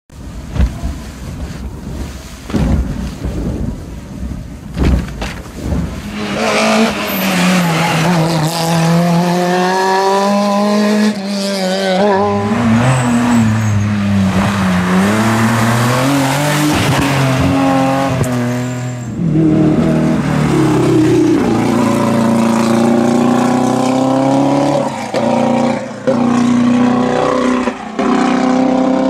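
Historic rally cars at full attack on a tarmac stage, engines revving up and falling back through gear changes, one car passing and then, after about 19 seconds, another. A few sharp knocks come before the engines start, in the first six seconds.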